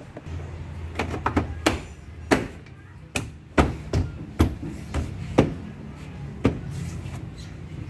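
Plastic car-door trim cover being pressed and tapped back into place: about a dozen sharp knocks and clicks at irregular intervals, over a low steady hum.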